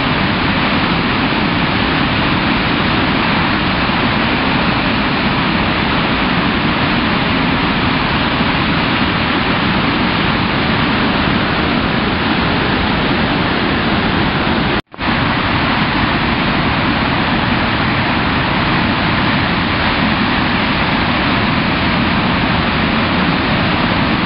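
Flood-swollen river rushing through rapids: a loud, steady wash of white-water noise from the storm-driven floodwaters. It cuts out for an instant about fifteen seconds in, then carries on unchanged.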